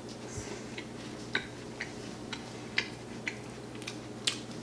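Someone chewing crunchy toast spread with peanut butter and topped with jalapeño slices: small crisp crunches about two a second, over a low steady hum.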